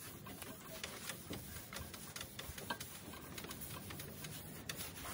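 Paper shop towel being wiped over a bare sheet-steel car fender: faint scuffing with many light ticks in quick, irregular succession.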